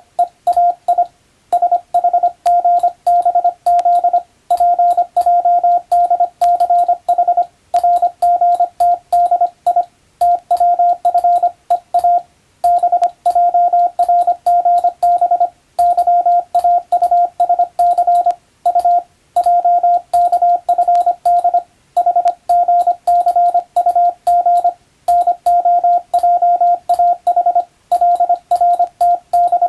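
Morse code practice signal: a single steady beep tone keyed on and off rapidly in dots and dashes, with short pauses between words.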